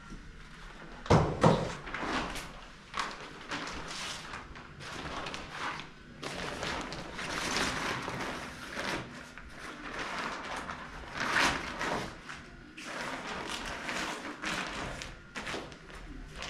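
Two loud thuds about a second in, then irregular rustling and soft knocks as a cloth-wrapped stack of lavash flatbread is handled and set down on a countertop.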